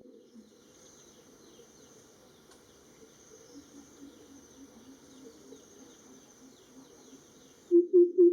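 Greater coucal giving its deep, resonant call: a fast series of low notes, about four a second, that starts near the end. Before it there is a steady high insect buzz with faint low calls.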